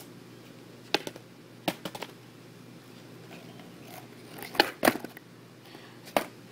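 Skateboard on a concrete sidewalk during pop shove-it attempts: sharp clacks of the tail popping and the deck and wheels slapping down. One comes about a second in, two near two seconds, a close pair about four and a half seconds in, and one more just after six seconds.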